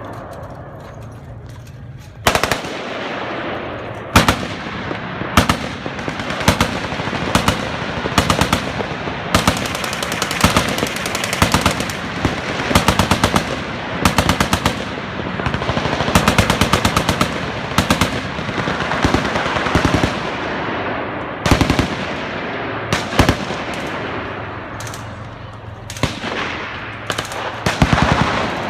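Several machine guns firing at once from a firing line: long, rapid bursts of automatic fire overlapping with scattered single shots, starting about two seconds in.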